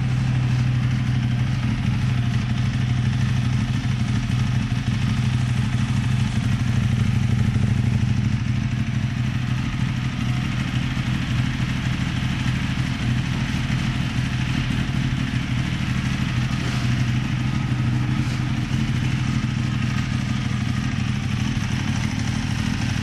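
Ducati 1098R's 1198 cc L-twin engine idling steadily on a paddock stand.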